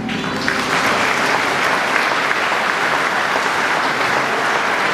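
Audience applause, breaking out suddenly and then holding steady.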